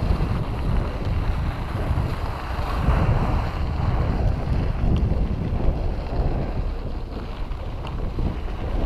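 Wind rushing over the microphone of a camera on a moving mountain bike, a heavy low rumble with the tyres rolling over dirt and gravel beneath it. A couple of light clicks come through, one about halfway and one near the end.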